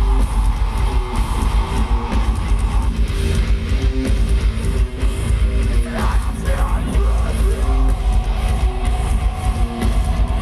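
A metalcore band playing live through a festival PA: loud guitar-driven heavy music with a dense, booming low end, heard from within the crowd.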